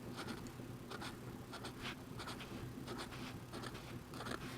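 Sharpie felt-tip marker drawing small circles on drawing-pad paper: a string of short, faint, scratchy strokes, two or three a second.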